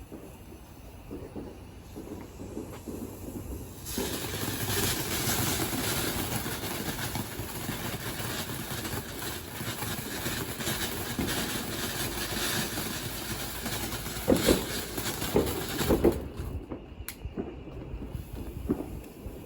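Firework fountain hissing and crackling as it sprays sparks for about twelve seconds, with a few louder pops near the end before it cuts out. It starts about four seconds in.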